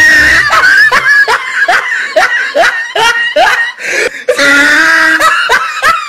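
A person laughing in a quick run of short 'ha' pulses. About four seconds in, it gives way to a long, loud held cry.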